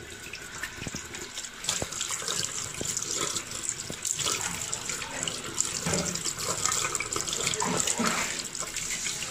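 Water running from a tap and splashing into a sink, with small knocks and clatter.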